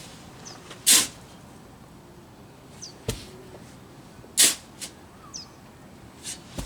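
A shovel scraping into soil twice, about three and a half seconds apart, with a sharp knock between them.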